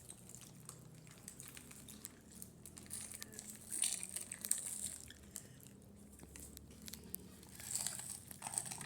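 Quiet chewing of gummy candies: soft mouth clicks, with brief rustling or crinkling about four seconds in and again near the end.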